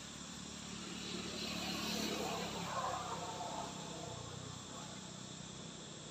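Insects calling steadily in a high continuous trill. A broader rush of noise swells about a second in, peaks around the middle and fades again.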